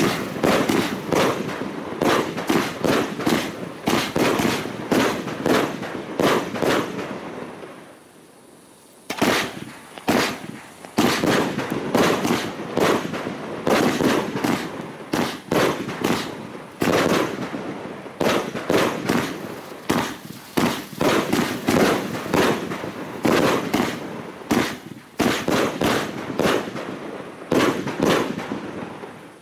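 A Luypaers Asiatic Cheetah 100-shot firework cake firing in quick succession, with several sharp reports every second as the shots launch and burst. The firing dies away for about a second around a third of the way in, then picks up again.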